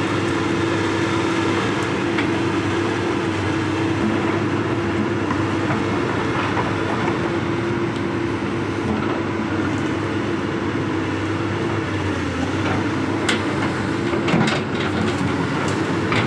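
Komatsu crawler excavator's diesel engine running steadily with a constant hum while it works its boom and bucket, with a few sharp clanks near the end.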